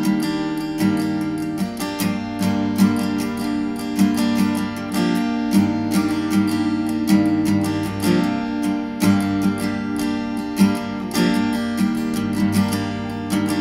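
Acoustic guitar playing a song's instrumental opening: a steady run of plucked chords and notes, with no voice yet.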